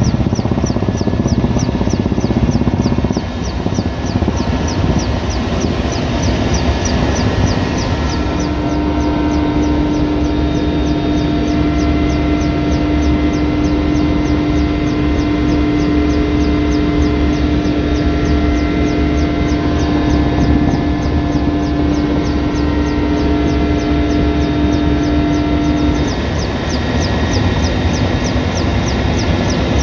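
Helicopter engine and rotor noise heard from inside the cabin: a loud, steady drone with a fast, even ticking. A steady hum comes in about eight seconds in and drops out a few seconds before the end.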